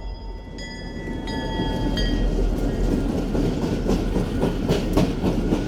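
Freight train cars rolling by, getting louder, with thin high metallic squeal tones in the first two seconds. The clatter of wheels over rail joints becomes a run of sharp clacks in the second half.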